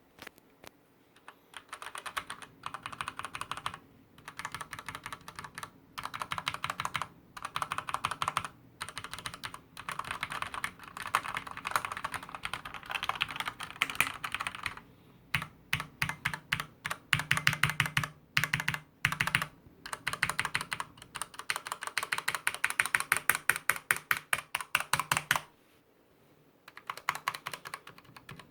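Typing on a Typone Mars Pro mechanical keyboard with Cherry MX Black linear switches: fast runs of keystrokes broken by short pauses, with a stretch of slower, harder single key presses around the middle.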